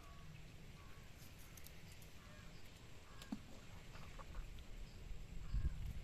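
Short bird calls, a few scattered chirps, over a low rumble of wind on the microphone that swells near the end.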